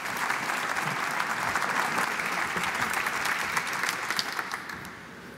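Audience applauding, a steady clatter of many hands clapping that dies down near the end.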